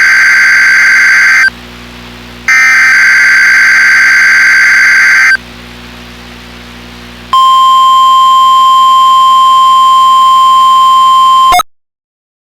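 NOAA Weather Radio SAME data header: two loud, harsh digital data bursts with short gaps between them, followed by one steady 1050 Hz warning alarm tone about four seconds long that cuts off abruptly.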